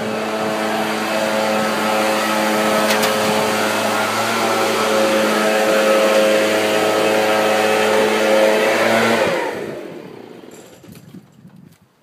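Echo backpack leaf blower's two-stroke engine running at a steady speed, then shut off about nine seconds in, its pitch falling as it winds down to a stop.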